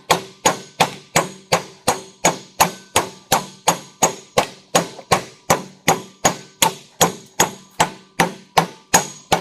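Steady hammer blows, nearly three a second, on a punch driving the steel laminations out of a microwave oven transformer core. Each blow is a sharp metallic strike with a short ring.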